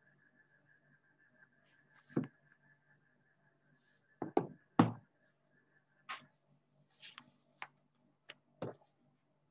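Scattered short knocks and taps, about eight of them, the loudest a quick cluster about halfway through, over a faint steady hum.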